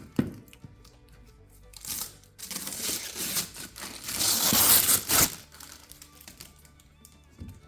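Crinkling, rustling handling noise for about three seconds, loudest just before it stops, with a few short clicks around it, over quiet background music.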